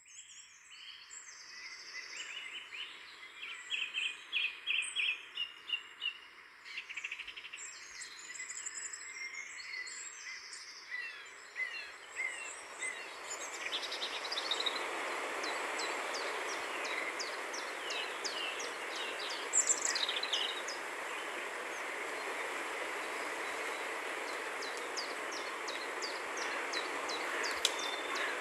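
Birds chirping, with a quick run of repeated calls a few seconds in, over a steady wash of outdoor noise that grows louder about halfway through.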